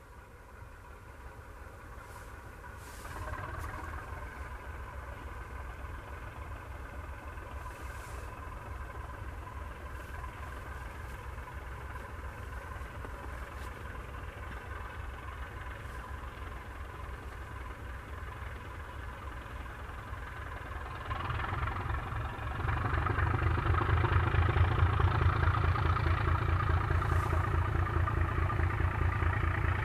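ČSD class 751 diesel locomotive's six-cylinder diesel engine running steadily as it hauls a freight train. It grows louder as the train approaches, with a marked jump in loudness about three-quarters of the way through.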